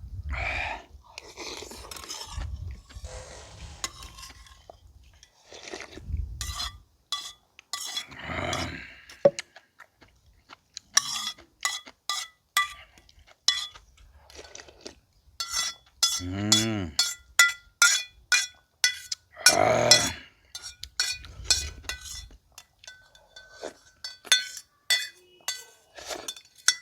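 Cutlery clinking against dishes during a meal: many sharp clicks, some with a short metallic ring, coming thickest in the second half, with eating sounds and a few brief voiced sounds between them.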